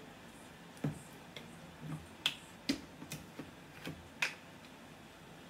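About seven sharp, irregularly spaced clicks and pops from handling a plastic squeeze bottle of mayonnaise and a small glass shaker over a bowl of macaroni salad.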